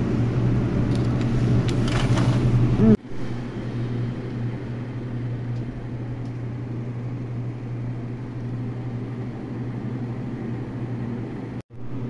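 Steady low hum of a running electric household appliance, cut off by a sudden brief dropout about three seconds in and again near the end, and a little quieter after the first.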